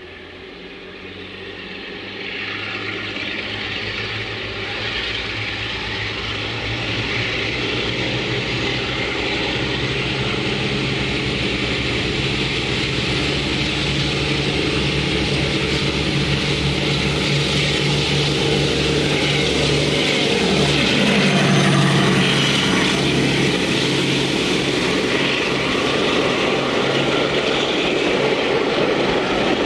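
Class 52 'Western' diesel-hydraulic locomotive working hard on full power, its twin Maybach engines growing steadily louder as it approaches. It passes about two-thirds of the way through, the engine note shifting, and then the rumble of its coaches going by takes over.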